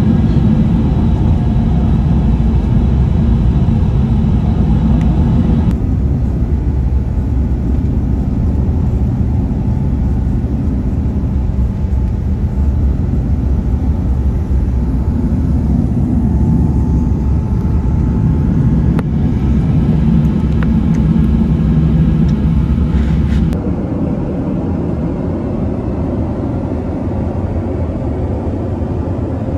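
Steady low rumble of engine and airflow noise inside the cabin of an Airbus A350-900 with Rolls-Royce Trent XWB engines, first in the climb just after takeoff. It changes abruptly about six seconds in to a somewhat different steady cabin rumble, and drops to a quieter steady hum about 23 seconds in.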